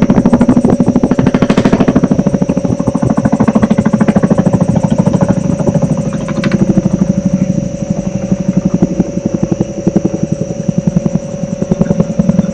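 Rapid, machine-like pulsing throb, about ten beats a second, under a steady hum. It is even for the first half and grows more uneven and slightly quieter after that.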